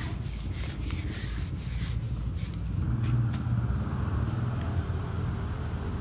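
Low, steady rumble with scratchy rubbing and rustling noises over the first two and a half seconds, then a smoother rumbling hum.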